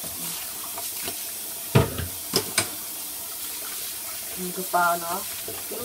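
Kitchen tap running into a plastic bowl of chicken meatballs in a stainless steel sink, with hands swishing the meatballs through the water. A few sharp knocks come about two seconds in.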